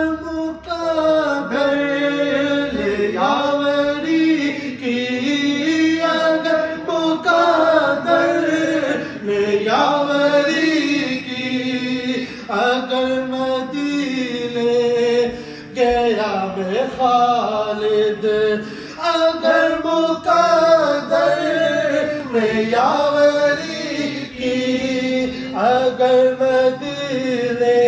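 A man singing a naat, an Urdu devotional poem in praise of the Prophet, into a microphone: a single male voice with long held notes that bend and waver, without instruments.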